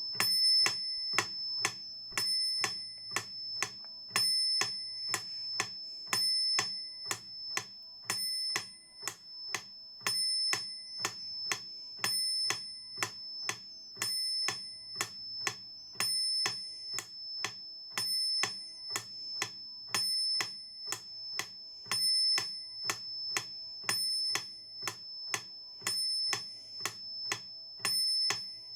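Metronome clicking steadily at 120 beats per minute, two clicks a second, with every fourth click accented and higher-pitched. A steady high-pitched whine sits under the clicks.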